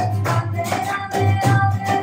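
Live kirtan music: group chanting with violin, guitar and harmonium over a brisk beat of hand claps and percussion, about four beats a second, with one long melody note held through most of it.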